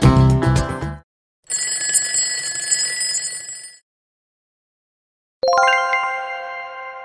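Upbeat background music stops as the quiz countdown runs out, then a bell sound effect rings for about two seconds to signal time's up. A moment later a single bright chime is struck and slowly fades as the answer is revealed.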